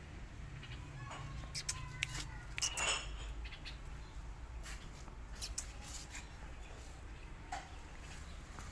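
Sandalled footsteps scuffing and clicking on a concrete pavement, irregular, a cluster about two to three seconds in, over a steady low outdoor rumble, with a faint thin squeak near the start.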